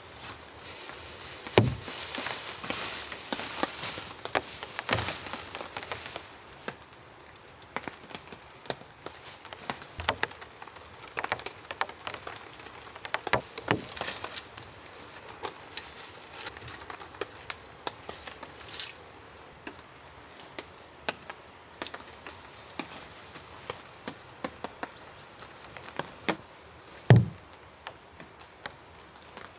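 Tent being pitched by hand: nylon fly rustling, light metallic clinks of tent stakes and fittings, and scattered clicks and knocks as the guylines are pegged out. Two dull thumps, the loudest near the end, as stakes go into the ground.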